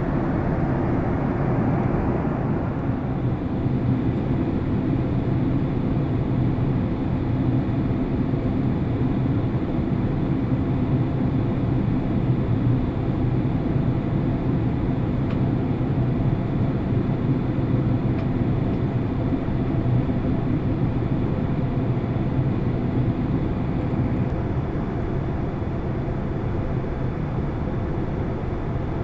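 Steady cabin noise inside a Boeing 767-300 airliner on its descent toward the runway: a low, even drone of the engines and the air rushing past the fuselage, easing slightly near the end.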